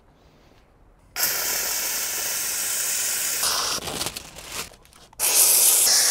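Handheld steam cleaner's nozzle hissing as steam is blown onto window tint film to soften its adhesive: a steady hiss starting about a second in and lasting about two seconds, then, after a short weaker spell, a second, louder burst near the end.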